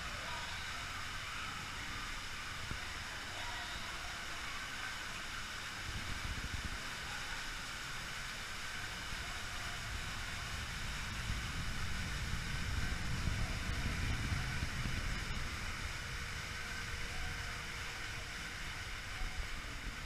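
Ride boat moving through an indoor water channel: a steady low rumble under a wash of water noise, the rumble swelling about twelve seconds in, then easing off.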